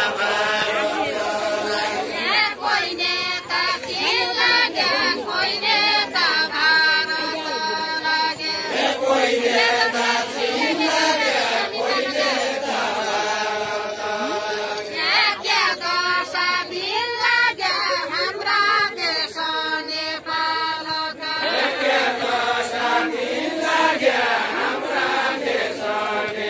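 A group of people singing a deuda, the Far-Western Nepali folk song of the deuda khel, unaccompanied, in long drawn-out phrases with short breaks between them.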